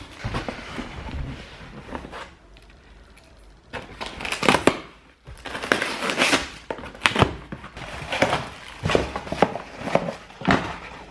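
A small cardboard box being opened by hand: a knife cut through its packing tape, then the flaps pulled open and crumpled paper packing rustled, in a string of sharp crackles and scrapes from a few seconds in.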